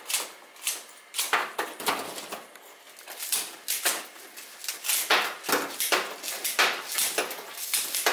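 Scissors snipping through sticks of brittle pulled-sugar candy: an irregular series of crisp snaps, about one or two a second, as short pieces break off onto a stainless-steel tray.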